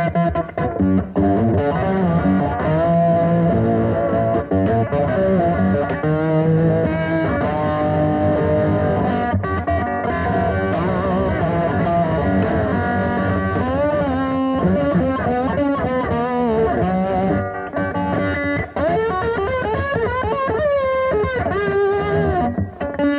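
Slide guitar on an electric guitar with a dirty, overdriven tone: picked phrases whose notes glide up and down in pitch, the glides plainest about two-thirds of the way through and again near the end.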